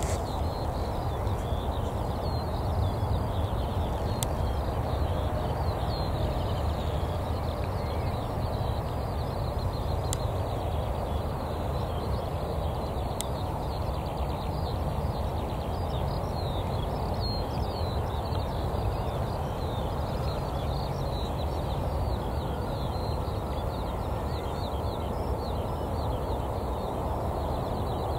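Boeing 787-9 airliner landing, its jet engines a steady low rumble, with small birds chirping high above it throughout.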